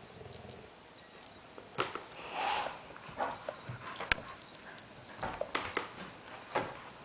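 Two dogs play-wrestling: scuffling with a series of sharp clicks and knocks as paws and bodies bump about, and a breathy sniff or huff about two and a half seconds in.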